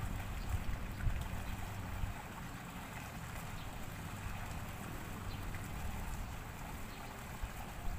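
Outdoor ambience: wind rumbling on the microphone over a steady faint hiss.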